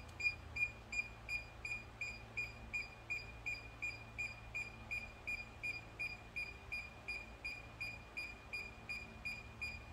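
DJI Mini 2 remote controller beeping rapidly and steadily, short high beeps about three a second, while in linking mode waiting to pair with the drone.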